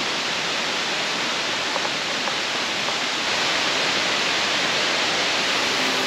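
Banyumala twin waterfalls rushing: a steady, even roar of falling water.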